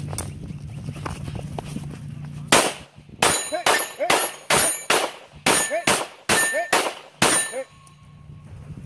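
A Hayes Custom 5-inch 9mm pistol firing a quick string of about eleven shots, two to three a second, at a steel plate rack, the hits answered by short metallic rings of the steel plates. A low steady rumble comes before the first shot.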